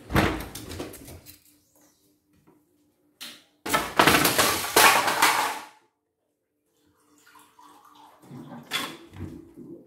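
A stripped CNY embroidery machine being handled and tipped onto its side on a wooden workbench: scraping and rattling of its metal frame and plastic parts. There is a short burst at the start and a louder stretch of about two seconds in the middle.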